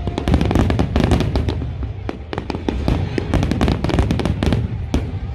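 Fireworks display going off continuously: a rapid barrage of sharp cracks and bangs, many each second, over a steady low booming rumble.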